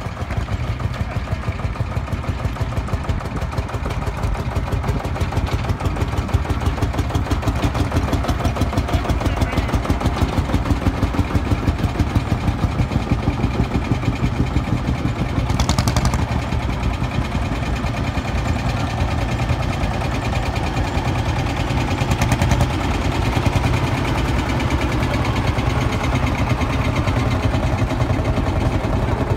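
Vintage Marshall single-cylinder two-stroke diesel tractors driving past one after another, each engine beating out a fast, even rhythm. A brief hiss cuts through the engine beat about halfway, and a weaker one a few seconds later.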